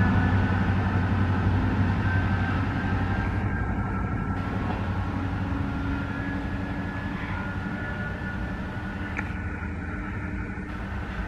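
GO Transit diesel locomotive and bi-level commuter train pulling away: a steady low engine drone with rail noise, fading gradually as the train recedes.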